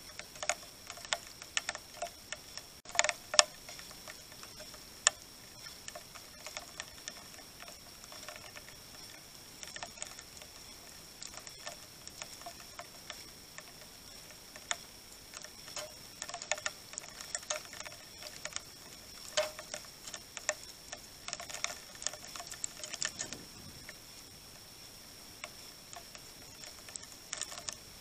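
House sparrows pecking and husking seed on a feeder: quick, irregular taps and clicks in bursts, loudest about three seconds in.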